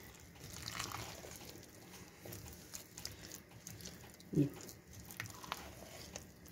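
Spoon stirring thick gram-flour batter with diced potato in a bowl: faint wet squelching and small clicks of the spoon against the bowl. A short hum of a voice about four and a half seconds in.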